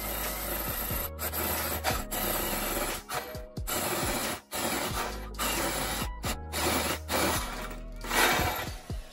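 Hand-held electric drill boring into the end grain of a mulberry wood block, the bit chewing through the wood with a steady grinding hiss that cuts out abruptly several times. Background music with low bass notes plays underneath.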